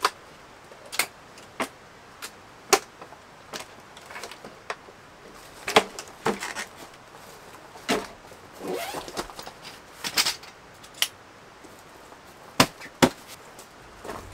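Folding wooden camping table and folding camp chair being unfolded and set up: a string of sharp wooden knocks and clacks at irregular intervals, with a stretch of rustling past the middle.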